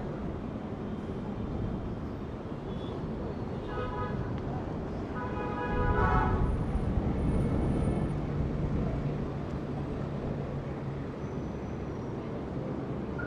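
Busy city street traffic with a steady rumble of engines and tyres. A vehicle horn sounds twice, briefly about four seconds in and longer about five and a half seconds in. Traffic is loudest around six to eight seconds in as a heavy vehicle passes close.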